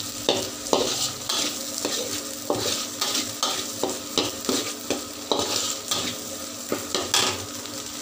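Metal spoon scraping and turning curry spice paste with lemongrass in a wok, about two strokes a second over a steady sizzle of frying oil; the strokes stop shortly before the end. The paste is being fried until fragrant and the oil separates out.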